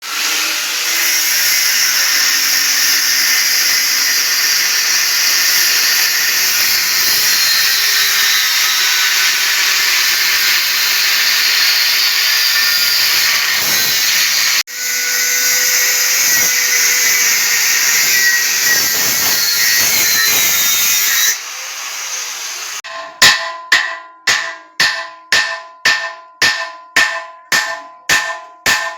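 Power tool working metal, a loud steady hiss for about twenty seconds with a brief break near the middle. Then comes an even run of sharp ringing strikes, about two a second.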